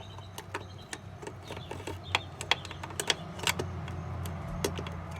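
Irregular metallic clicks and taps of a ratchet and extension with a Torx bit being worked onto a screw, over a steady low hum.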